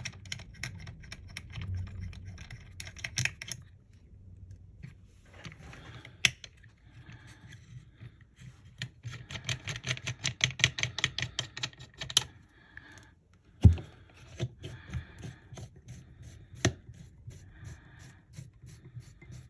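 Small opening tools clicking and scraping against an iPhone 12 Pro's frame as the screen, its adhesive softened by heat, is pried away from the chassis. There are scattered light ticks, a fast run of them midway, and a few sharp knocks, the loudest just after that run.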